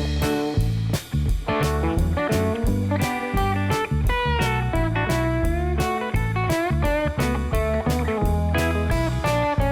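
Background music: electric guitar playing a bluesy melody with bending notes over a steady drum beat and bass.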